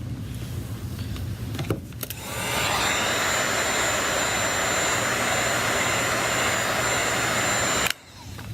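Electric hot-air blower, such as a heat gun, switched on about two seconds in. It runs with a steady rush of air and a thin high whine, then is switched off abruptly near the end.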